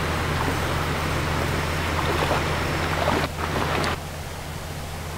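Steady rushing outdoor noise with a low hum underneath, with faint voices about two to three seconds in. The noise drops off abruptly a little after three seconds.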